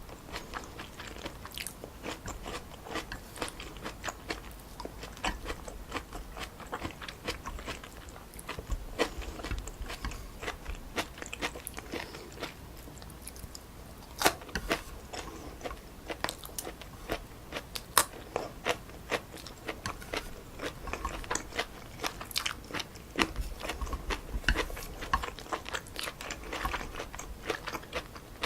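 Close-miked chewing and biting of stir-fried wide glass noodles with pork and vegetables: a steady stream of sharp, wet mouth clicks with some crunching.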